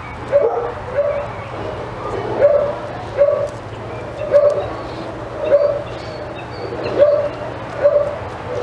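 A dog barking over and over in short, high yips, a little more than one a second, at an even pace.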